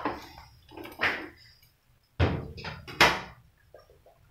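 Metal spatula clanking and scraping against an aluminium wok as chicken feet are stirred: a handful of sharp metallic knocks roughly a second apart, with quiet between them.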